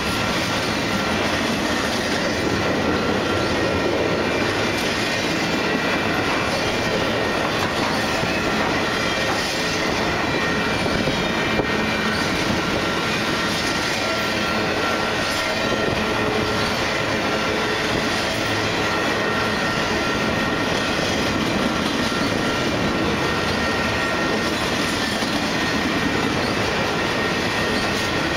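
Double-stack intermodal freight train cars rolling past at close range: a steady rumble and clatter of steel wheels on the rails, with a faint steady high squeal from the wheels.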